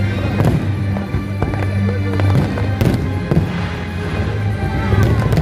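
Fireworks bursting, with sharp bangs and crackles heard over loud music with a steady, pulsing bass.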